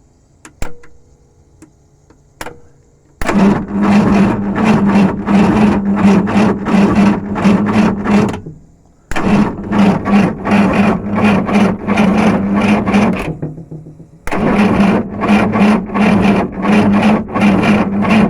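Two light clicks, then a VW Vanagon's converted engine cranked over on the starter three times, each spell lasting about four to five seconds with an even chugging rhythm. It never catches: a crank-but-no-start, which the owner is still chasing in the electronics although the fuel pump is working.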